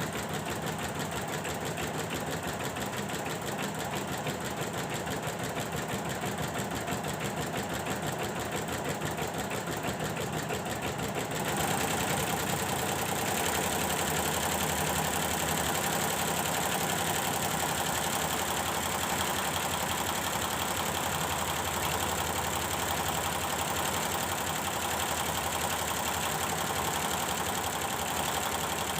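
Computerised embroidery machine stitching, its needle strokes going in a fast, even rhythm; about eleven seconds in it gets louder and brighter. It is on a test run after its drive unit's power supply was repaired.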